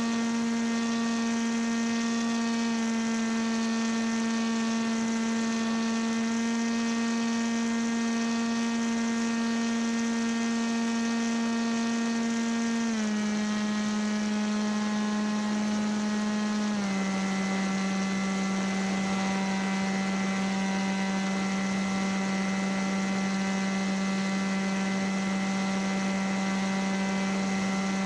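The Opale Hybrid 3.0 paramotor's motor and propeller running with a steady droning hum, its pitch stepping down twice, about 13 and 17 seconds in, as the throttle is eased back while the paramotor keeps flying level to slightly climbing.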